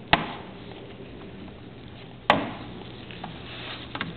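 Two sharp knocks about two seconds apart, then a fainter one near the end, over a low steady hum.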